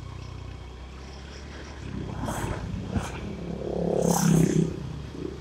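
Motorcycle engine running steadily while riding. From about two seconds in, a louder rushing noise builds and is loudest a little after four seconds.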